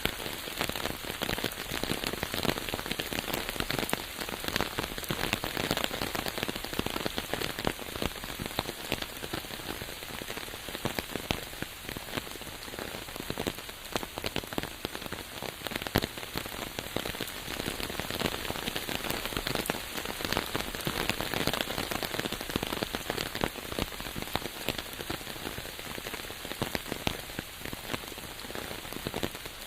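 Steady rain falling and pattering on a surface, a dense hiss of many close drop ticks with no let-up.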